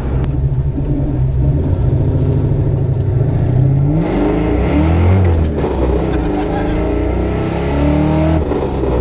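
Ford Mustang 5.0 V8, tuned to about 400 hp, heard from inside the cabin accelerating hard. The engine note climbs from about three and a half seconds in, breaks off briefly at a gear change near the middle, then climbs again.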